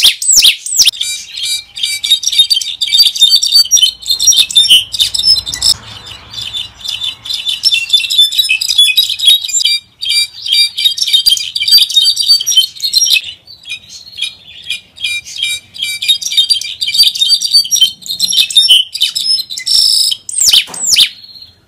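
Brown-backed solitaire singing: a long, fast run of jumbled high notes, with a few long sweeping slides near the start and near the end and a couple of brief breaks midway.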